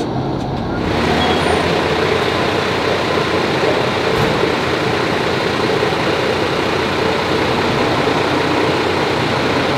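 Steady rumble and hiss of a running vehicle, which sets in abruptly about a second in.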